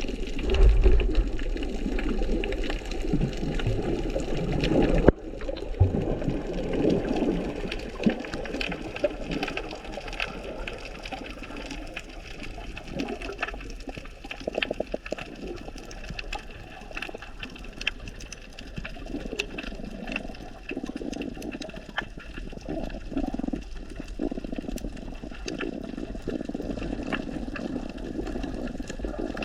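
Underwater sound as picked up by a diver's camera: muffled sloshing and rumbling water movement, with a scattered crackle of sharp clicks. The sloshing is loudest in the first five seconds, then changes abruptly and the clicks take over.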